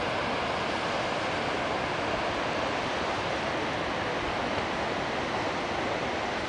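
Steady rush of falling water from glacial meltwater cascades, an even roar with no breaks.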